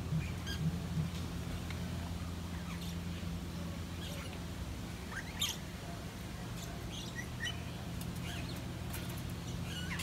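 Lorikeets giving short, scattered shrill chirps and screeches, the loudest about five and a half seconds in, over a steady low hum.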